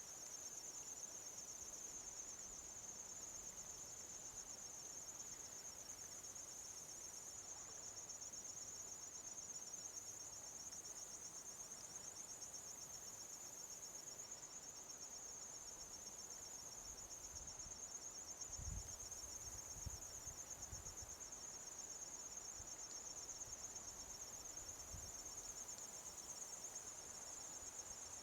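A steady, high-pitched trilling chorus of crickets. A few soft low thumps come about two-thirds of the way through.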